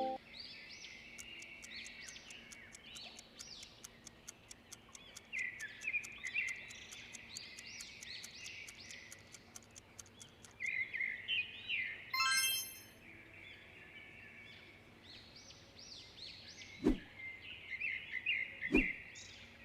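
Many small birds chirping and twittering in a dense chorus, with a fast run of faint ticks in the first half, one short buzzy call about twelve seconds in, and two sharp clicks near the end.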